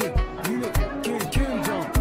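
Background music with a steady kick-drum beat, about one beat every 0.6 s, under bass notes that bend up and down in pitch.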